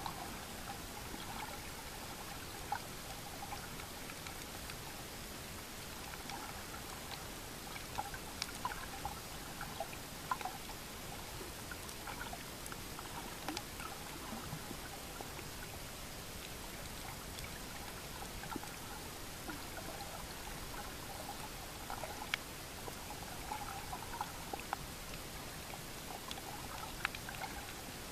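Underwater sound picked up by a submerged camera: a steady hiss with scattered sharp clicks and short bubbly gurgles of moving water.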